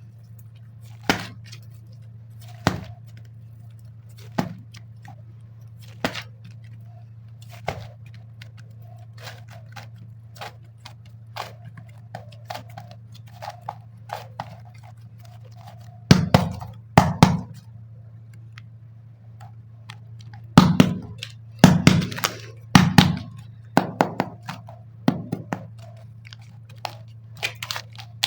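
Clicks and knocks from unboxing and handling air-dry clay packs. Sharp single clicks come about every second and a half at first, then smaller ticks, then louder clusters of clacks about two-thirds of the way through, all over a steady low hum.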